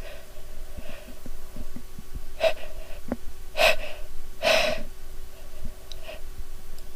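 A woman's short gasping breaths in, three stronger ones in the middle, as a sneeze builds from a tickle in her nose.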